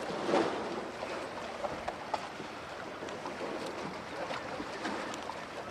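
Steady background noise of wind and lake water lapping at the shore, with a few faint clicks.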